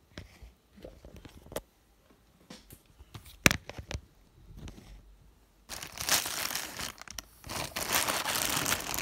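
A plastic mailer bag being handled and torn open: scattered crinkles and one sharp crack about three and a half seconds in, then dense, loud crinkling of plastic from a little past halfway.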